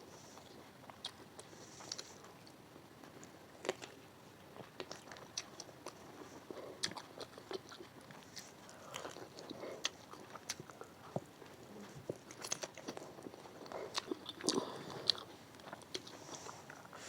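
A person chewing and crunching a chicken biryani meal close to the microphone, with irregular sharp clicks throughout.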